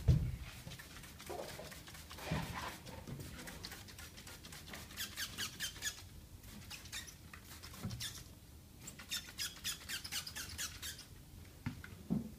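Degreasing the bare metal inner panel of a car door with a trigger spray bottle and a cloth: two runs of quick hissing strokes, about five or six a second, with a few soft bumps of handling.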